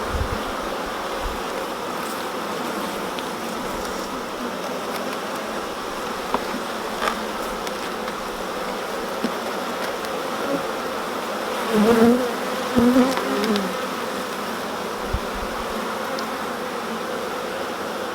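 Honeybees buzzing steadily from an open hive whose brood frames are being inspected; the hum swells louder a couple of times around twelve to thirteen seconds in.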